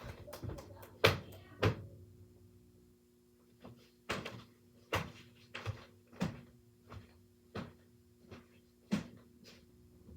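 A series of sharp knocks or clacks, the loudest two about a second in, then after a short lull a run of knocks about one every two-thirds of a second, over a faint steady hum.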